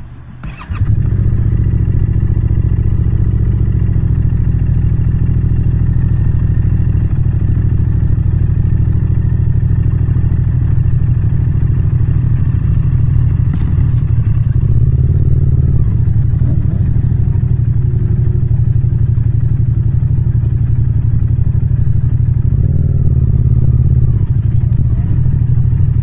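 Yamaha MT-07 parallel-twin motorcycle engine, coming in suddenly about a second in and then running steadily at an even, low engine speed.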